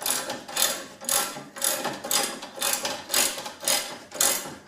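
Socket ratchet clicking in repeated strokes, about two a second, as it tightens a coil spring compressor to compress the rear spring.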